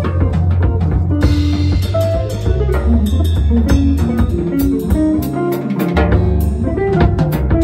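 Jazz group playing: electric archtop guitar lines over electric bass notes and a drum kit with cymbals. The low bass drops out briefly about five seconds in.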